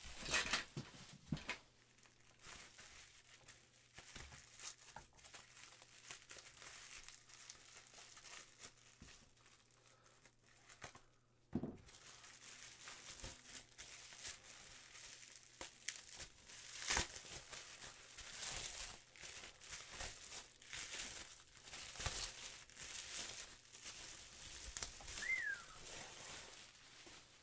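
Bubble wrap and a plastic bag crinkling and rustling in irregular bursts as they are handled and pulled open, with one sharper knock about halfway through.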